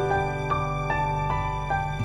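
Background music: a slow, soft melody of notes changing about twice a second over a sustained bass.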